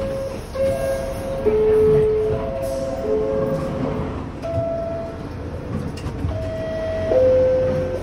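New York City Subway R62A door chimes sounding the door-closing signal several times: each is a two-note ding-dong stepping down in pitch, and the pitch differs from one car's chime to the next. The train's steady running rumble lies under them.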